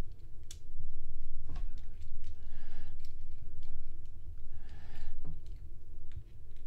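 Plastic joints and parts of a Transformers action figure clicking and snapping as it is handled and transformed: a series of sharp clicks over low handling rumble.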